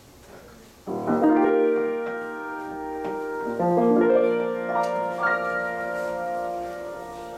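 Grand piano played in slow, held chords, coming in about a second in after a short quiet, with the chord changing a few times.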